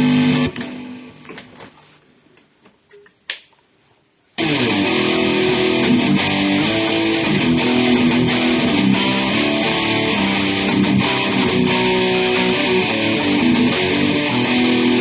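Electric guitar played through an amplifier: a chord rings out and fades, then after a short near-quiet pause broken by a click, steady riffing with changing notes starts about four seconds in and continues.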